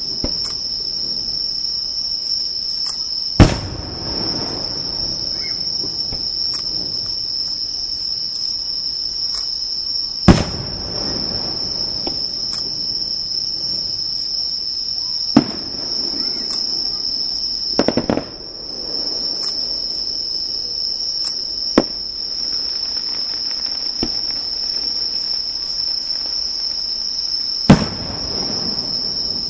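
Fireworks bursting at a fireworks display: six loud booms spaced a few seconds apart, most followed by a rumbling echo, with a quick cluster of cracks about eighteen seconds in. A steady, high insect trill runs underneath.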